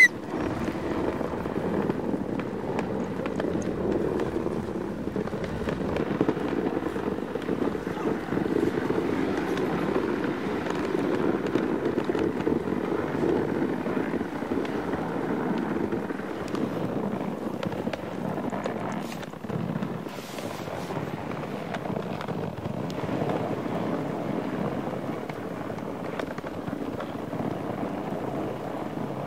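Dog sled travelling over snow: a steady rushing noise from the moving sled, with a few faint clicks and knocks about two-thirds of the way through.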